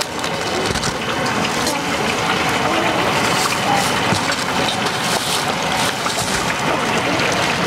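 Tofu deep-frying in a wok of hot oil: a steady sizzle.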